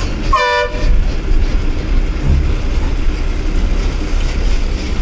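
Steady diesel engine and road noise heard inside the cab of a moving bus. About a third of a second in, a horn sounds once, briefly, for about half a second.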